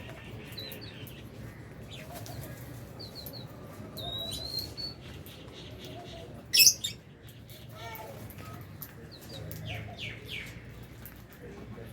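Aviary flock of lovebirds and budgies chirping with short high calls, with one loud, sharp shriek a little past halfway.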